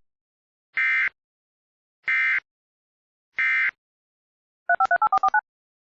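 EAS SAME end-of-message (EOM) data bursts: three short, identical, buzzy digital warbles about a second apart, marking the end of the alert. They are followed near the end by a quick run of about eight short electronic beeps alternating between two pitches.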